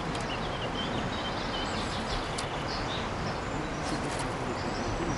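Small birds chirping in short high notes over a steady rushing background noise.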